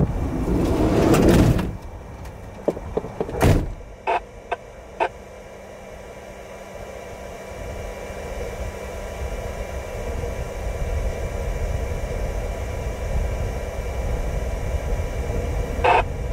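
Wind noise on the microphone for about the first two seconds, then a single thump about three and a half seconds in and a few short clicks. A steady low rumble follows.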